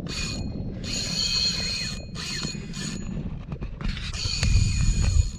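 Fishing reel winding or paying out line in several bursts, a mechanical whir with a high whine, the longest burst near the end. A steady low rumble runs underneath.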